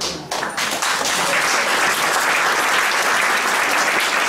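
Audience and panel applauding: a few separate claps at the start fill into steady, dense applause within the first second.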